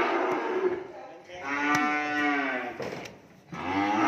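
Cattle mooing: three long moos one after another. The first trails off about a second in, the second fills the middle, and the third starts near the end.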